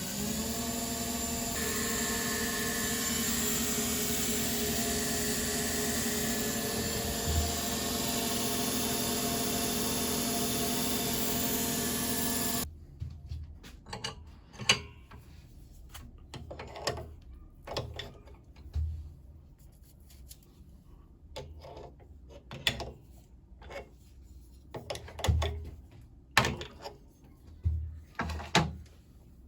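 A power tool's electric motor spins up and runs steadily, then cuts off suddenly a little before halfway. After it come scattered knocks and clicks.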